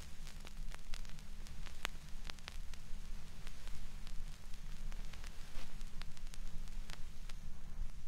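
Vinyl record surface noise from a yellow transparent 180g LP as the stylus rides the silent run-out at the end of the side: soft steady hiss over a low rumble, with scattered pops and clicks.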